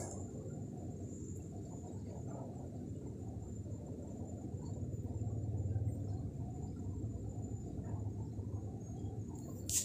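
Soft, uneven handling noise of thick t-shirt yarn being worked with a metal crochet hook. It sits over a low steady hum and a faint, thin, high-pitched steady whine, with a sharp click right at the end.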